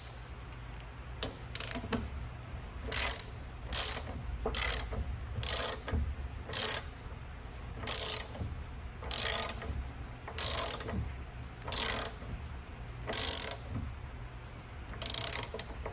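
Socket ratchet clicking in about fifteen short bursts, roughly one a second, as it is worked back and forth to run down the castellated nut on a Land Rover Series III half-shaft drive flange. The nut is being brought up to a light torque of about 10 to 15 foot-pounds.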